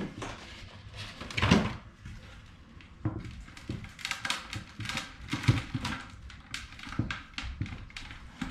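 Hands working potting soil off a tomato seedling's root ball: crumbly rustling and scattered small clicks as the dirt breaks away, with a louder knock about a second and a half in.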